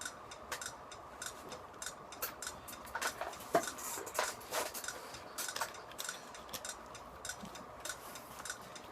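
Steady, even ticking runs throughout, like a clock in the room. About three to five seconds in, a few louder clicks and rustles of gear being handled rise over it.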